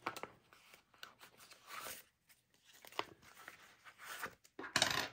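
Rustling and crinkling of a plastic cash-budget envelope and paper banknotes being handled, in short scattered bursts, loudest just before the end.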